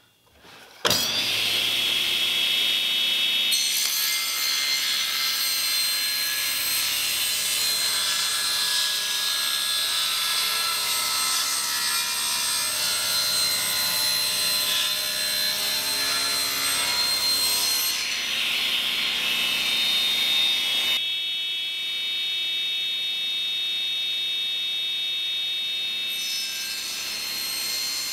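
Table saw switched on about a second in and running steadily, its blade ripping a wooden board lengthwise.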